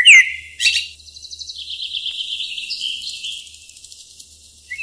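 Small cage birds chirping: a falling whistle at the start, then a fast run of high chirps lasting about three seconds that thins out near the end.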